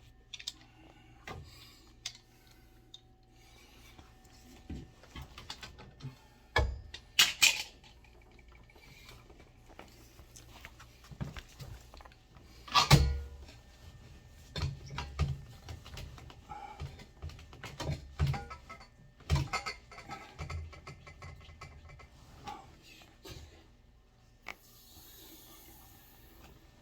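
Scattered knocks, clanks and rubbing of hand tools and metal fittings being handled during work on an HVAC unit's water strainer, with one loud knock about halfway through and a brief hiss near the end.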